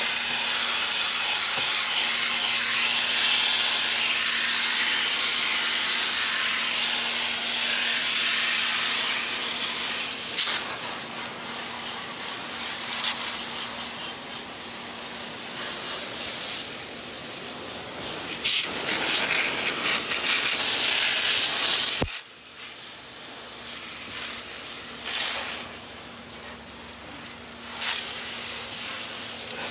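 Water spraying hard from a hose wand onto a utility vehicle's radiator and front end, rinsing out coil cleaner and mud. It makes a hiss that shifts as the spray moves over different surfaces, cuts off abruptly about two-thirds through, then returns in shorter spurts.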